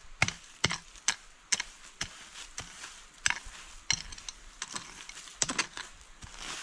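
A short-handled hand tool striking into stony soil and leaf litter over and over, in uneven sharp knocks about two a second, while the ground is dug out.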